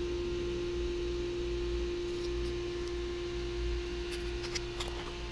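A steady, single-pitched background hum over a low rumble, with a few faint clicks about four to five seconds in.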